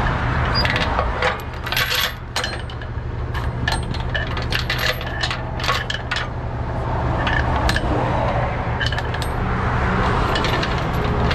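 Steel tow chains clinking and rattling against the metal wheel-lift as they are handled, a string of sharp metallic clinks, over the steady low hum of an idling truck engine.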